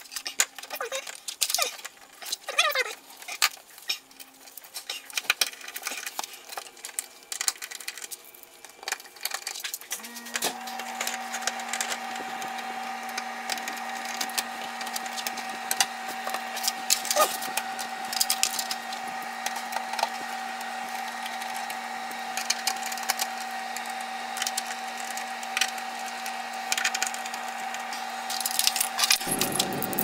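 Clicks, rattles and a few short squeaks of a sheet-metal refrigerator cover panel being handled and worked back into place. About ten seconds in, a steady machine hum starts and runs under the handling until shortly before the end.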